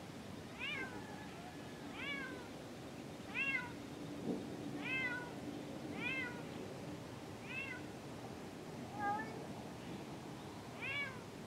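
A barn cat meowing repeatedly, about eight meows spaced roughly a second and a half apart, each rising then falling in pitch.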